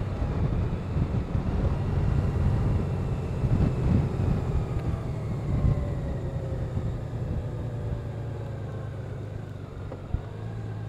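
Honda Gold Wing's flat-six engine running at low road speed with wind and road noise, its note falling slowly through the second half as the level eases. A single short click about ten seconds in.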